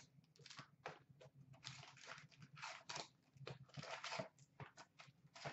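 Faint rustling, scraping and tapping of a cardboard trading-card box being opened and its packs tipped out, in many short irregular bursts.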